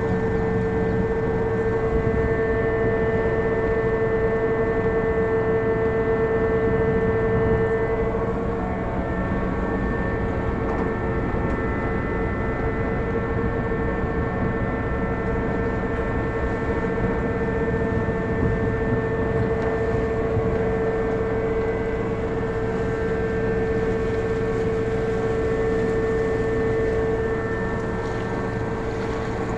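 An engine or machine running steadily, a constant hum with one strong held tone and several fainter ones above it, which eases slightly a few seconds in and again near the end.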